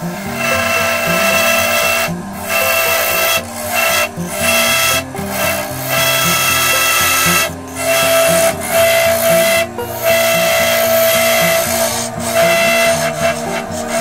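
Hand-held steel chisel cutting a spinning wooden blank on a wood lathe: a loud scraping hiss with a steady high ringing tone, stopping briefly half a dozen times as the tool comes off the wood.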